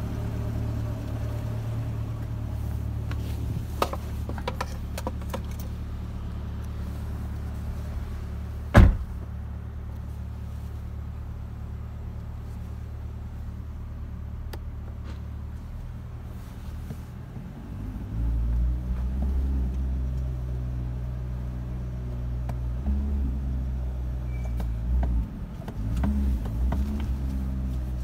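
A 2023 Chevrolet Corvette C8's V8 idling steadily, with a few light clicks about four to five seconds in and a single loud thump about nine seconds in, the car door shutting. From about eighteen seconds in the engine note grows louder and uneven.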